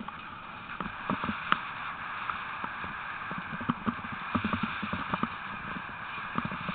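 A sled-dog team running in harness on a dirt track, with the rig rattling over the rough ground behind it: a steady rush of movement noise broken by many irregular knocks and rattles.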